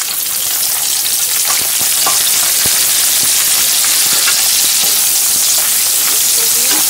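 Onion wedges sizzling in hot oil in a kadai alongside dried red chillies, garlic and ginger. The frying hiss grows louder over the first couple of seconds as the onions go in, then holds steady, with a few light clicks.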